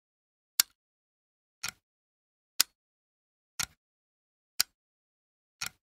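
Antique clock ticking once a second, six ticks in all, alternating a sharp single tick with a softer doubled tock.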